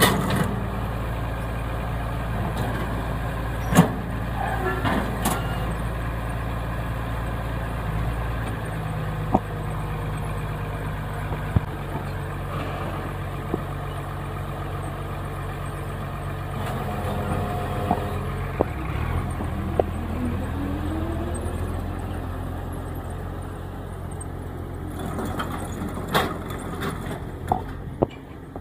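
Tractor engine running steadily while a New Holland pull-type bale wagon picks up small square hay bales, with a few sharp clanks and knocks from the wagon's pickup mechanism and a brief rising whine about two-thirds through.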